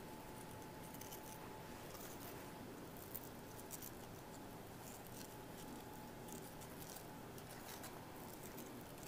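Faint soft clicks and taps of raw apple slices being picked up and tucked into place on pie dough, over quiet room tone with a faint steady hum.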